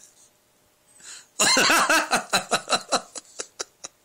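A person laughing: a loud burst of laughter about a second and a half in, trailing off into short, quick pulses.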